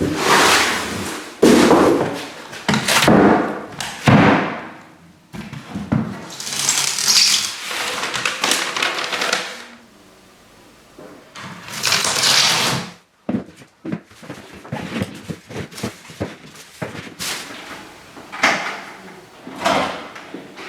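Irregular knocks, clicks and clatter of hands-on work, with two longer hissing rustles, one about six seconds in and one near the middle.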